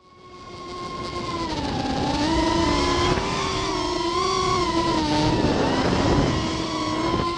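A racing quadcopter's electric motors and propellers whining as it flies, the pitch drifting up and down with the throttle. The sound fades in over the first second or two, then holds steady.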